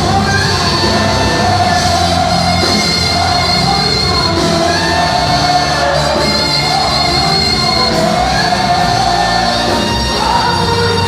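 Loud live gospel worship music: a singer holds long, wavering notes over a full band.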